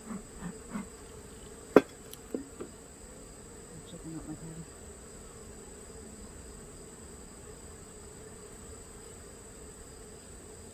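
Honeybees buzzing steadily around an open Langstroth hive, with one sharp knock about two seconds in and a lighter one just after.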